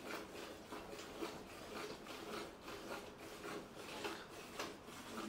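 Gir cow being milked by hand: rhythmic faint squirts of milk hissing into a partly filled steel bucket as the milker's hands work two teats in turn.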